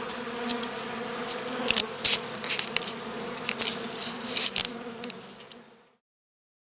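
Winter cluster of honey bees humming steadily inside the hive, with scattered sharp crackling clicks from about two seconds in. The sound fades out and stops about six seconds in.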